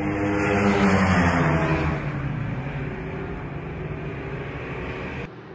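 Ducati superbikes at full race speed pass close by, their engine note loudest about a second in and dropping in pitch as they go past. A steadier, quieter engine note follows, then the sound drops off suddenly near the end.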